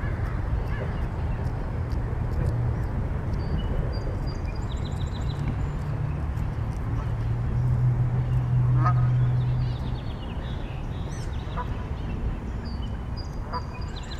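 Canada geese giving short calls now and then, over a steady low rumble that swells for a couple of seconds about eight seconds in.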